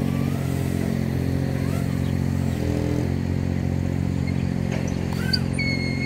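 A steady low mechanical hum made of several held pitches, which shift briefly about two and a half seconds in.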